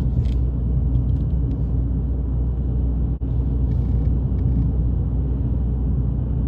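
Steady low road rumble heard inside the cab of a Ford Maverick Hybrid pickup driving at speed. The sound briefly drops out about three seconds in.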